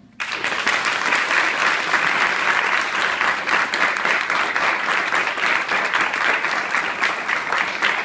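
Audience applauding. The clapping breaks out just as the piano's final chord dies away, then keeps up at a steady level.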